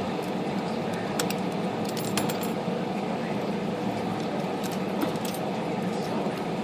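A few light metallic clicks and clinks as small parts are worked off an IBM Selectric typewriter's mechanism, scattered ticks over a steady background hum.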